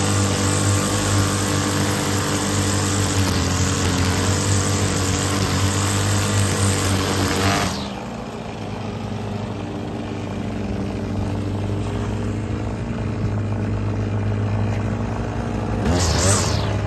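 String trimmer running at high speed while edging along a concrete sidewalk, a steady buzzing drone with a strong hiss. About eight seconds in the hiss drops away and the sound quietens, then slowly builds again, with a brief swell near the end.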